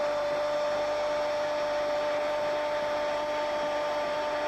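Stadium crowd noise, a steady hiss, with a steady pitched hum laid over it.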